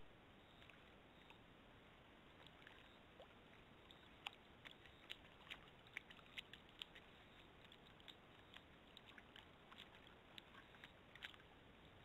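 Faint water sounds of a giant anteater wading and bathing in a shallow pool: a scatter of small splashes and drips, thickest from about four to eleven seconds in, over the steady hiss of a camera-trap microphone.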